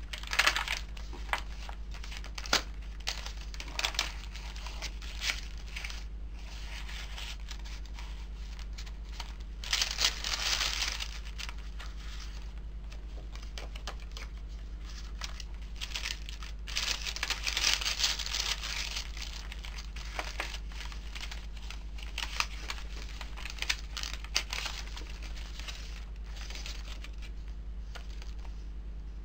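Pages of a handmade journal being turned and handled: stiff coffee-dyed paper and tucked-in ephemera rustle and crinkle in irregular bursts, with a few sharp page flicks. The bursts are loudest about ten seconds in and again from about sixteen to nineteen seconds in, over a steady low hum.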